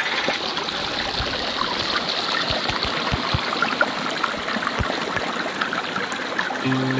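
Rain-swollen stream flowing steadily over its bed, a constant rushing with a few soft low bumps. Guitar music comes in just before the end.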